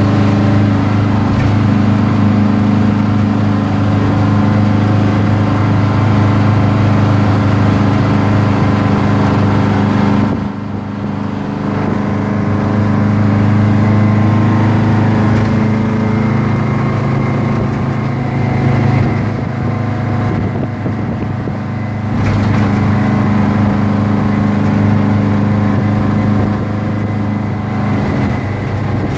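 Detroit Diesel 8V71N two-stroke V8 of a 1982 Hahn fire truck running under way, heard from inside the cab. Its note drops suddenly about ten seconds in and then builds again.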